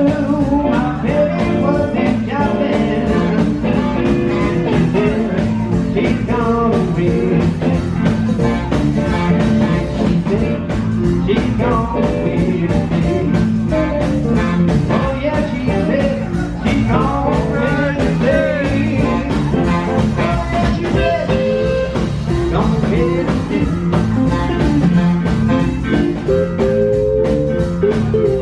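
Live band playing an uptempo rock and roll number: electric keyboard, upright bass, drum kit and electric guitar together, with lead notes that bend up and down in pitch.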